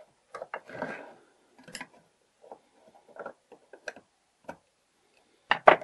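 Small metal clicks and taps from the parts of an old mortise door lock being handled and fitted into its steel case, with light rustling, irregularly spaced, and the sharpest click near the end.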